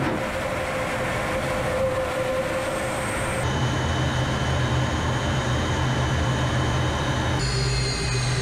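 Su-25's twin turbojet engines heard from inside the cockpit: a steady roar with a high turbine whine. The sound changes abruptly about three and a half seconds in and again near the end, where the whine shifts to a slightly falling pitch.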